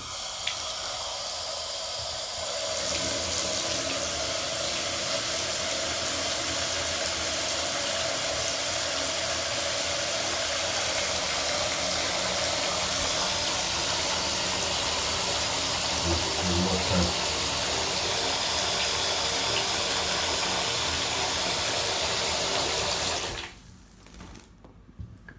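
Tap water running steadily into a sink. It gets louder a couple of seconds in and cuts off abruptly about two seconds before the end.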